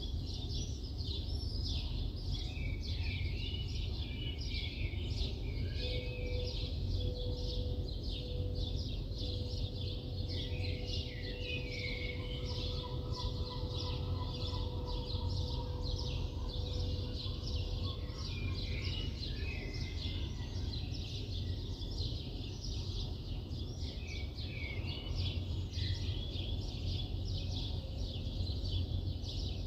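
Many small birds chirping and twittering in a busy morning chorus, over a steady low city rumble. A steady hum at one pitch comes in about six seconds in and fades out around eighteen seconds.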